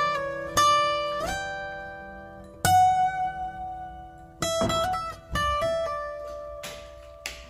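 Background music: a plucked guitar playing a slow run of single notes, each ringing and fading.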